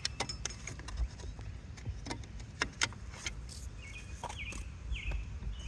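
Scattered light clicks and taps of bolts and plastic dock parts being handled during assembly, over a steady low rumble, with a few short high chirps near the end.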